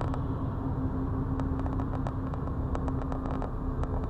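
Diesel locomotives of a freight train passing over a grade crossing: a steady low drone from the engines with irregular clicking as the wheels run over the rails, heard from inside a stopped car.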